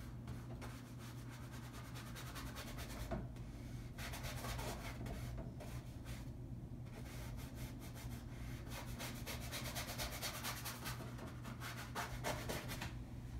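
Paintbrush scrubbing paint onto a stretched canvas: a dry, scratchy rubbing in runs of quick strokes with brief pauses, over a steady low hum.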